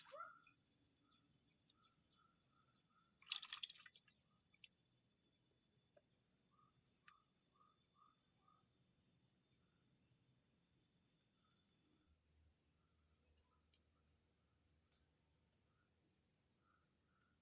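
Insects, crickets among them, trilling steadily in a high-pitched chorus, with short lower chirps repeating every half second or so. A brief noise breaks in about three seconds in, and one part of the chorus drops out near the twelve-second mark.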